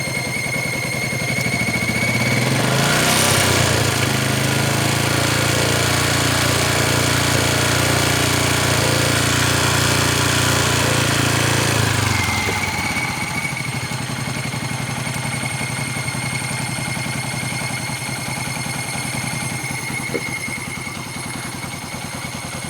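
Yamaha New Jupiter MX 135 single-cylinder four-stroke engine idling with a strange steady high-pitched tone over it. The engine is revved up about two and a half seconds in and held for about ten seconds, and the tone fades away while it is revved. It returns once the engine drops back to idle.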